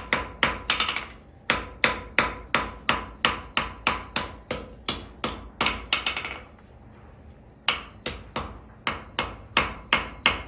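Blacksmith's hand hammer striking hot quarter-inch steel bar on an anvil, steady blows about three a second, each with a ringing note, as the square stock is worked round. The hammering breaks off briefly about a second in and again for about a second two-thirds through, then resumes.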